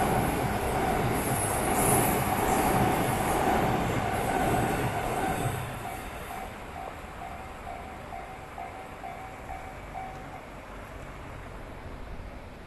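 A train passes over a level crossing with its wheels squealing, then drops away about five seconds in. The crossing's electronic warning bell rings steadily about twice a second, then stops about ten seconds in as the crossing clears.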